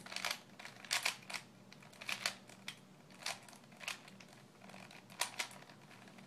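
Rubik's cube being turned by hand: quick runs of plastic clicks and clacks as its layers snap through turns, the moves of an edge-swap algorithm in a blindfold solve. The turning stops about five seconds in.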